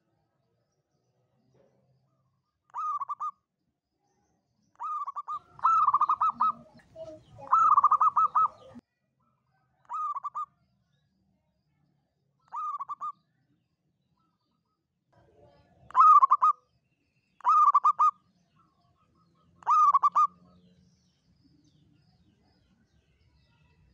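Zebra dove (perkutut) cooing: short trilled coos, each under a second, repeated every couple of seconds, with a longer, louder run of coos in the middle.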